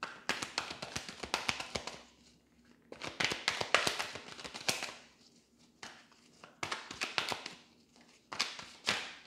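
A deck of tarot cards being shuffled by hand: bursts of quick card-on-card flicks and slaps, a second or two each, about five times with short pauses between.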